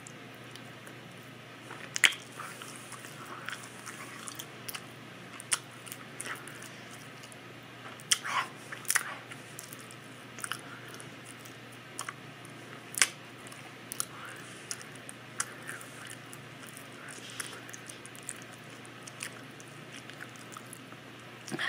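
Open-mouthed chewing of a mouthful of carrot cake cupcake with cream cheese frosting, with irregular sharp mouth clicks, the loudest about 2 seconds in, in a cluster around 8 to 9 seconds, and again around 13 seconds.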